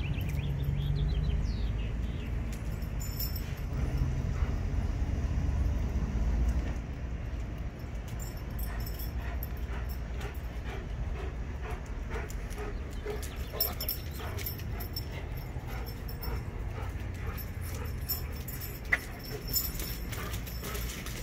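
Dogs moving about on a concrete yard: many light clicks and ticks of claws and collar tags, with a couple of short sharp dog sounds near the end.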